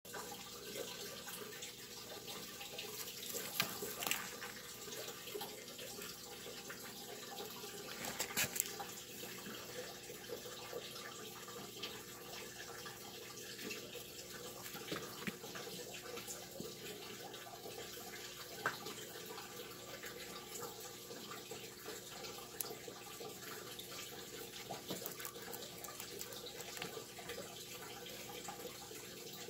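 Rabbit chewing and biting through stalks of hay: scattered crisp crunching clicks, a few of them louder, over a steady hiss.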